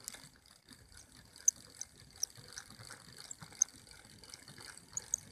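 Fishing reel being cranked in: a fast run of small mechanical clicks from its gears, with a few sharper louder ticks.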